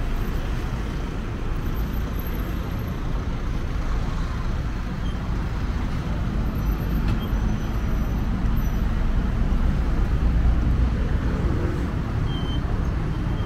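Steady street traffic noise: a low rumble of passing vehicles.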